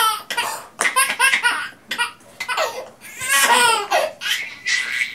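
A toddler laughing in a run of short bursts, with the longest, loudest laugh about three seconds in.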